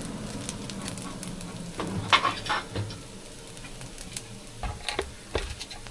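Fried rice in a wok, its sizzle dying away, with a handful of short scrapes and clinks from a spatula against the wok. The loudest clink comes about two seconds in, several more near the end.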